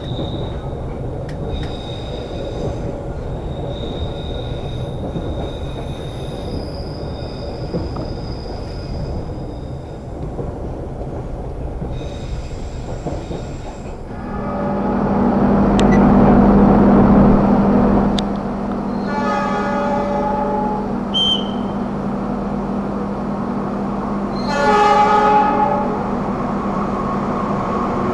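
Passenger train carriage running on the rails with a steady rumble. About halfway through a louder steady hum sets in, and a diesel locomotive's horn then sounds twice, with a third blast starting just at the end.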